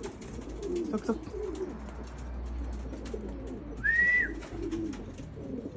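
Racing pigeons cooing in low, wavering calls. About four seconds in, a short high whistle rises and then holds briefly; it is the loudest sound.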